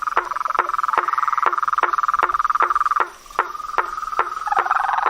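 Night marsh frog chorus: a dense steady trill, with sharp knocking calls repeating about two or three times a second. The trill breaks off briefly past the middle, and a lower-pitched trill joins near the end.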